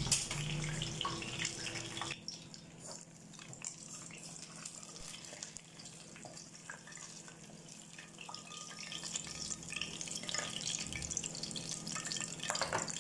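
Whole red tilapia in flour coating frying in hot oil, a steady sizzle that cuts off abruptly about two seconds in. After that only faint scattered clicks over a low steady hum, with a short clatter near the end.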